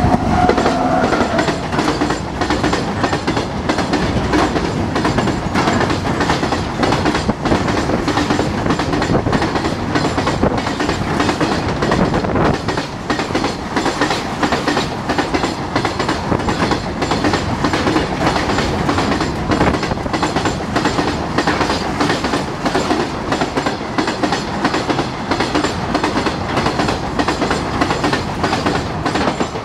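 Indian Railways freight train hauled by a WAG-9H electric locomotive running past close by, its wagon wheels clattering rapidly and continuously over the rail joints.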